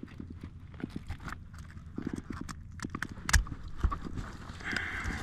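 A freshly landed redfish flopping on a kayak: a run of irregular taps and knocks, with a couple of heavier thumps a little past halfway, as it shakes the lure loose.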